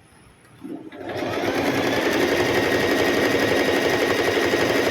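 Singer M3505 electric sewing machine starting about a second in, picking up speed and then running steadily while sewing a zigzag stitch.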